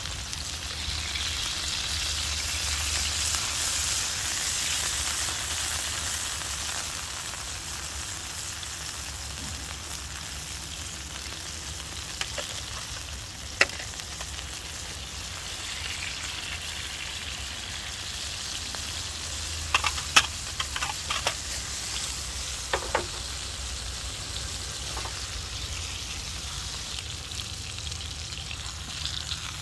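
Meat frying in oil in a pan on a portable gas camp stove: a steady sizzle, a little louder for the first few seconds, broken by a few sharp clicks, with the loudest cluster about twenty seconds in.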